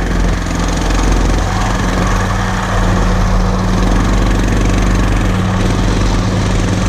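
Tractor engine running steadily under load while pulling an old hay mower through tall grass; the engine note shifts about a second and a half in.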